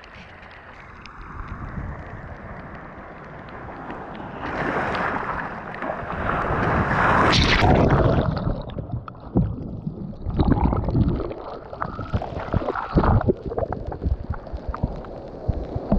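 Sea water churning and splashing close to the microphone. It grows louder after about four seconds, then comes in irregular rushes and splashes.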